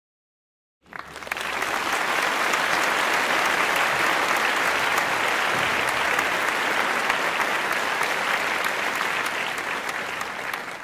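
Silence, then applause of many hands clapping comes in about a second in and holds steady, easing off slightly near the end.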